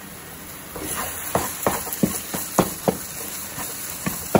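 Spatula stirring and scraping thick coriander upma in a nonstick frying pan, with a low sizzle of freshly added ghee underneath. Sharp clicks of the spatula against the pan start about a second in and come two or three times a second.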